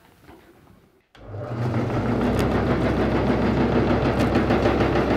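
Clipper grain cleaner switched on about a second in: it comes up to speed within about a second and then runs steadily with a fast, even rhythm from its shaking screens and fan.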